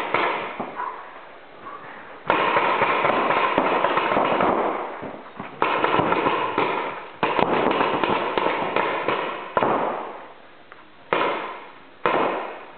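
Reball markers firing in rapid bursts: a fast rattle of shots that starts abruptly, lasts one to three seconds, and repeats about six times.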